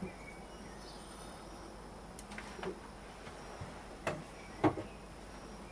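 A few sharp metallic clicks over a faint hiss, the strongest about four and four and a half seconds in, as steel crucible tongs are brought to the crucible of molten silver.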